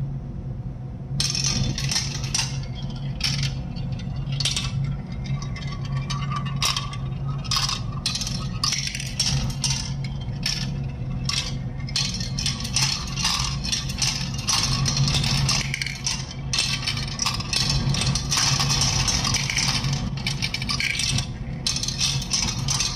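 Marbles rolling and clicking down a plastic marble-run track and clattering into a plastic toy dump-truck bin. A dense, irregular stream of clicks and rattles starts about a second in and goes on throughout.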